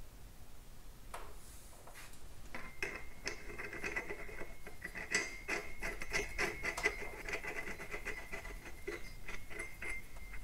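Small metal clicks and scrapes as nuts are run by hand onto the studs and centre main nut of a new V3 multi-plate wet clutch, over a faint steady high ring. The clicking starts about a second in, comes irregularly, and stops just before the end.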